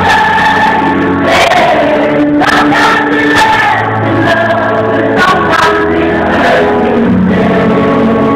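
Live stage music with a singer holding long notes over accompaniment, loud and continuous.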